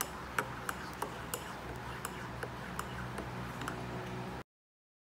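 A metal spoon stirring in a ceramic mug, clinking against the sides about two to three times a second. It cuts off suddenly about four and a half seconds in.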